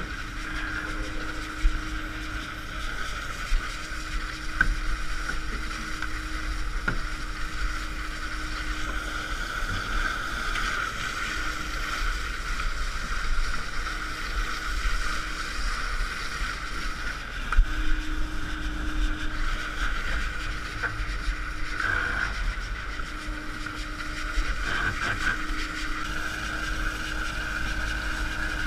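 Working boat at sea: a steady engine and machinery drone with wind on the microphone, a lower hum that comes and goes every few seconds, and a few sharp knocks.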